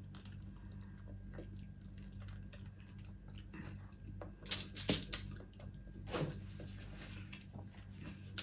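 Wet eating sounds of juicy mango being chewed and sucked, with a few louder slurps about halfway through, over a low steady hum.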